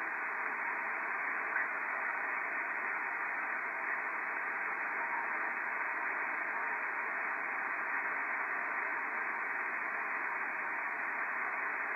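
Steady hiss of band noise from a Yaesu FT-1000MP Mark-V HF transceiver's speaker, receiving on the 20-metre band; the hiss is narrow and muffled, with nothing above the range of a voice.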